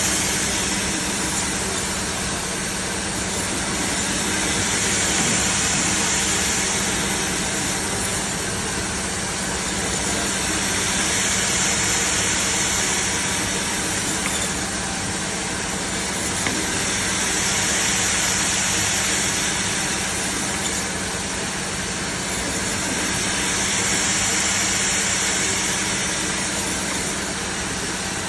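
Automatic double-blade meat band saw running steadily, a motor hum under the hiss of the blades, the noise swelling and easing in a regular cycle about every six seconds.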